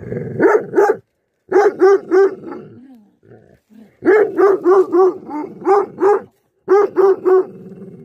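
A livestock guardian dog barking in four quick bursts of two to seven deep barks each. A low growl runs under the barking at the start and near the end.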